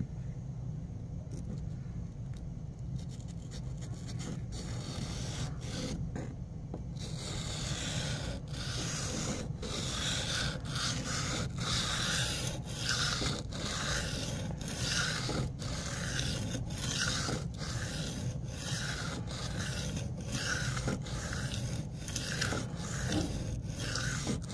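Knife blade being stroked back and forth by hand on a wet, coarse 100/80-micron sharpening stone, making gritty scraping strokes. The strokes are faint at first, then about seven seconds in they turn louder and even, a little over one a second.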